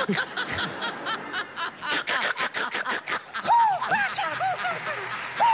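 A man's voice imitating the call of the caracolero (snail kite): a fast, dry rattling chatter that turns, about three and a half seconds in, into a string of short arching notes, roughly three a second.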